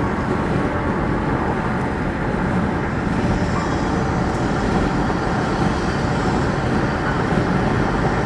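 Steady road noise inside a moving car's cabin: tyres rolling on the road and the engine running, with no change in pace.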